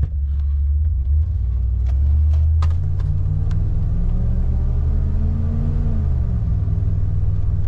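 Ford Econoline van driving, heard from inside the cab: a steady low engine and road rumble. The engine note climbs as the van accelerates, then drops about six seconds in as the automatic transmission shifts up, no longer slamming into gear. A few light clicks come in the first few seconds.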